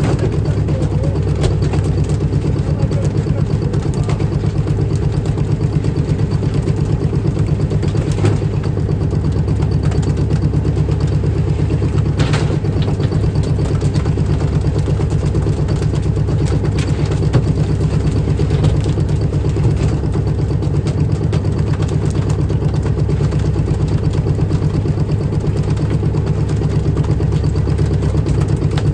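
A fishing boat's engine running steadily, a constant low drone with a fast even throb, with a couple of faint knocks partway through.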